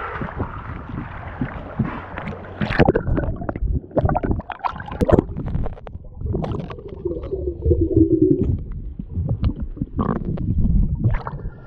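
Sea water sloshing and gurgling around a camera dipped into shallow water and held underwater, heard muffled, with irregular knocks and a low rumble.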